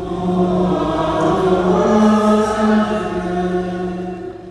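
Group of voices singing a slow liturgical chant in long, held notes that step from pitch to pitch, fading out near the end.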